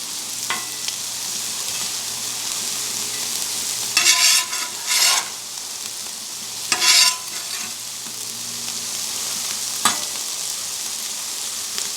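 Chicken thighs and waffle fries sizzling steadily on a Blackstone flat-top griddle. A metal spatula scrapes briefly across the steel top four times in the middle.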